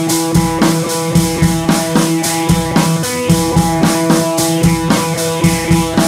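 Background music with a drum kit and guitar playing over a steady beat.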